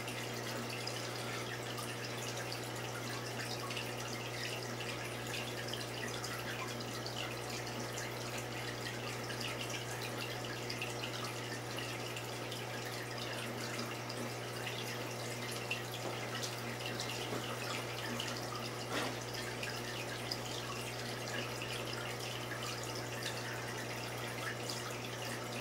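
Saltwater aquarium water trickling and dripping steadily, with small crackles, over a steady low hum.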